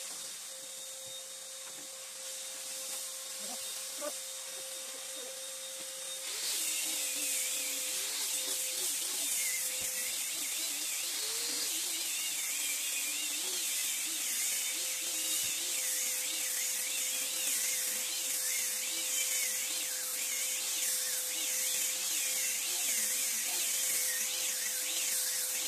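Handheld power sander with a red sanding pad running over teak planks with a steady motor whine. A loud hiss joins about six seconds in and holds to the end.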